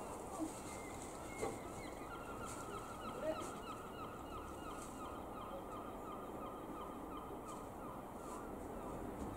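Low steady drone of a light aircraft's single piston engine, a Cessna U206F Stationair flying high overhead, with a bird calling in a quick run of short falling notes from about two seconds in to about seven seconds in.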